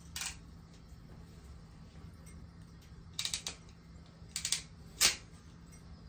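Sharp metallic clicks from a hand crimping tool being opened and handled: one near the start, quick rattling groups about three and four and a half seconds in, then a single loudest click about five seconds in. A steady low hum runs underneath.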